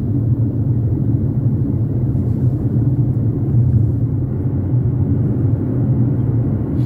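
A car driving along a street: a steady low rumble of engine and road noise.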